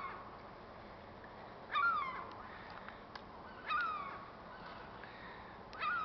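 Gull calling, one call about every two seconds, each rising briefly and then falling in pitch.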